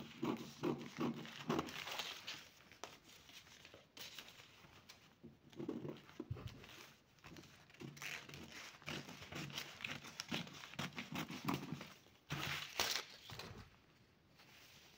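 Scissors cutting through several layers of paper pattern sheets: runs of quick snips with the paper crinkling, then a louder rustle of paper being handled a couple of seconds before the end.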